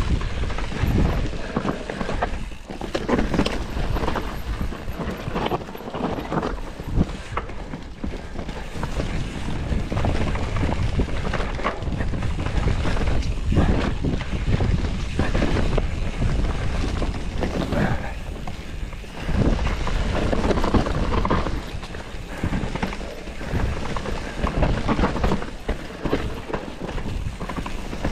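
Mountain bike riding fast down a dirt forest trail: tyres rolling over dirt and roots, with the bike knocking and rattling over bumps at irregular moments. Wind rushes on the microphone.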